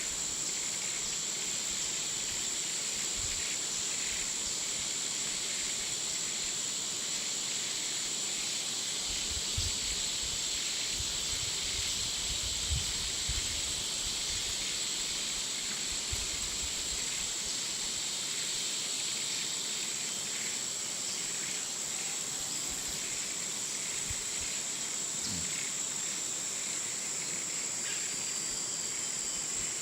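Hot jungle ambience: a steady high-pitched insect drone over a dense bed of insect hiss and chirring. A few soft low thumps come about ten to sixteen seconds in.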